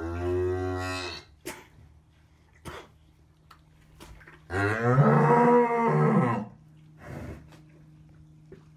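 Cow in labour mooing twice while calving: one long moo at the start and a louder one about halfway through that rises and then falls in pitch.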